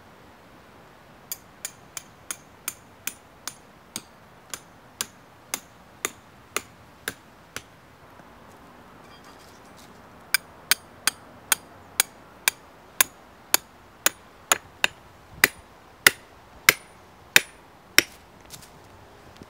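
Hammer blows on an iron stake being driven through a wooden bellows mount into the ground, each blow a sharp knock with a metallic ring. There are two runs of about fifteen steady blows at roughly two a second, with a pause of a few seconds between them; the last blows are the loudest and slightly slower.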